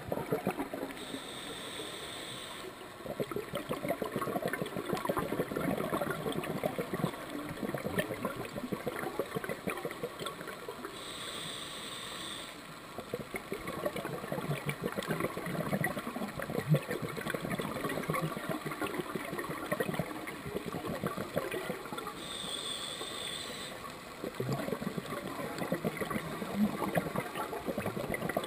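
Scuba diver breathing through a regulator, three slow breaths: each a hissing inhale of about two seconds, followed by several seconds of bubbling exhaust bubbles.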